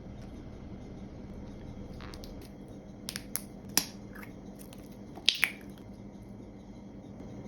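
Crackles and sharp clicks of plastic packaging and toy parts being handled during the unboxing of a surprise toy. A few come around the middle, with the loudest pair a little later, over a low steady hum.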